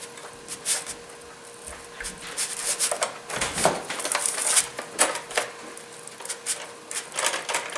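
Irregular clicks, knocks and scraping as a fabricated steel bracket is handled and fitted against a plastic aftermarket headlight housing, the loudest knock about three and a half seconds in.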